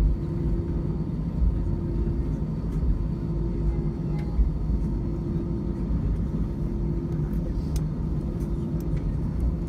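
Cabin rumble of an Airbus A319 taxiing to the runway with its engines at idle: a steady low rumble with a hum that fades in and out. A few light clicks or rattles come near the end.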